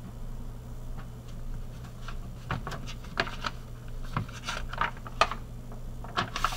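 A scatter of light clicks and rustles, handling noise, over a steady low electrical hum. No clarinet note is played.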